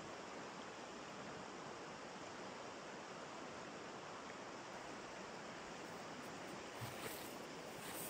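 Steady rushing of a flowing river, with one soft thump about seven seconds in.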